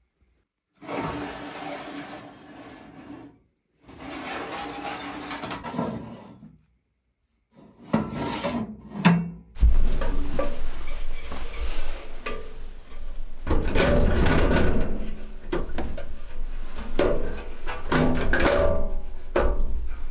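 Stainless-steel wood stove parts being handled: metal sliding and rubbing against metal in two short stretches, then from about halfway through a steadier run of scraping and knocking as the flue collar is fitted and fastened onto the stove's top plate.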